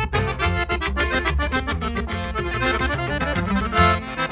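Button accordion playing a fast instrumental melody in a live norteño-style band, backed by guitar strumming and an upright bass line.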